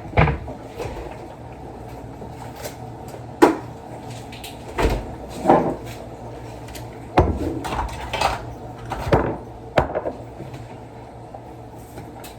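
Kitchen handling noises: scattered knocks and clacks of cupboard doors and containers being moved and set down on the counter, over a steady low hum.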